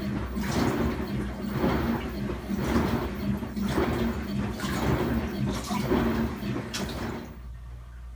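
LG WT7800 top-load washer agitating during the rinse of its tub-clean cycle: the impeller churns the water in rhythmic swishing surges about once a second over a steady low hum, until the sound drops off sharply near the end.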